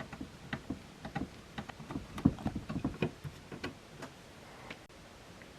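A screwdriver driving small screws back into the front panel of a Roland Fantom XR synthesizer: a run of light, irregular clicks and ticks of the bit and screws, stopping near the end.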